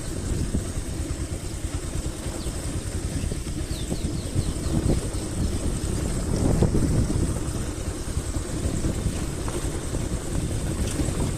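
Motorcycle running while being ridden: a steady low engine and road noise.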